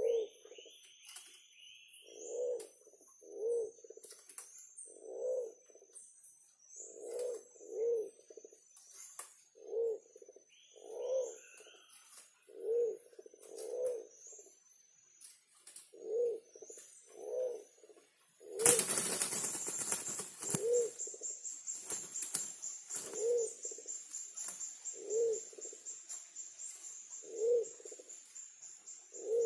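Forest pigeon cooing: single low hoots repeated every second or two. A few higher chirps come early on. About two-thirds of the way through a loud rustling burst cuts in, then a steady high-pitched buzz runs on under the coos.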